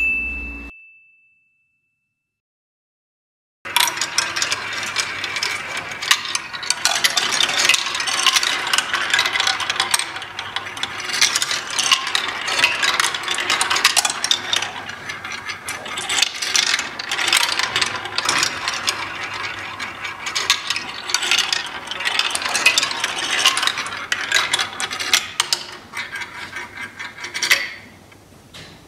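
A short ding that fades out, then after a silent gap a long run of rapid, uneven clicking and rattling of small hard parts, dying down near the end.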